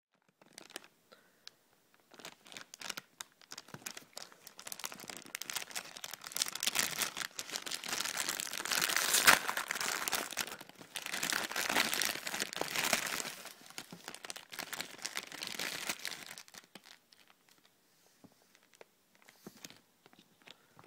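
Foil wrapper of a Kinder Surprise egg crinkling and tearing as it is unwrapped by hand. It grows loudest midway, then thins out to a few light clicks near the end.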